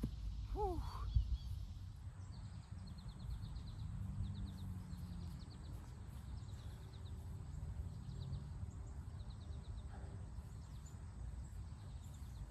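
Low rumble of wind on the microphone, with birds chirping and short, fast, repeated high trills at intervals; a single thud about a second in.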